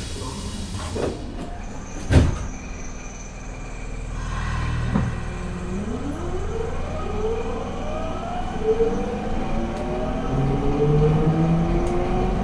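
Nagoya subway 5050 series train's Hitachi GTO-VVVF inverter whining in several stepped, rising tones as the train pulls away and gathers speed, over a steady low running rumble heard from inside the car. A sharp knock sounds about two seconds in.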